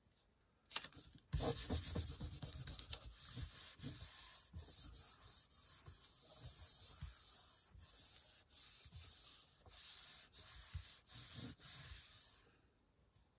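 Dry rubbing strokes by hand over paper and inked fabric lace, a rapid, irregular scraping that starts about a second in and stops shortly before the end.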